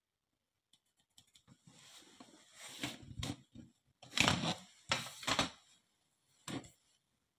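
Drawing paper and a plastic ruler being handled on a wooden floor: the ruler is lifted away and the sheet is slid and turned, giving a series of rustles and soft knocks, loudest about four seconds in.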